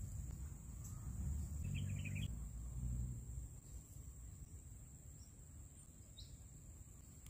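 Quiet outdoor ambience: a steady high-pitched insect drone, a brief bird chirp about two seconds in, and low rumbling during the first few seconds that then fades.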